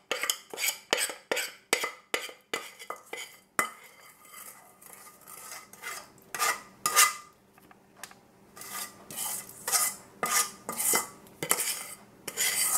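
Metal spoon scraping and knocking against a stainless steel saucepan while thick chocolate batter is scraped out of it. It starts with a quick run of clicks, about three a second, then slows to separate scraping strokes.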